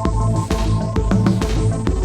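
Electronic background music with a steady beat, strong bass and repeating synth notes.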